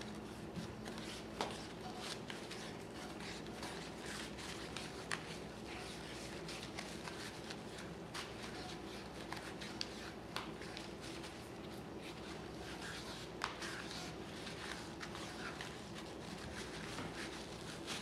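Faint crackling and rustling of wood wool (excelsior) being squeezed and wrapped tight with string by hand, with scattered small clicks, over a faint steady low hum.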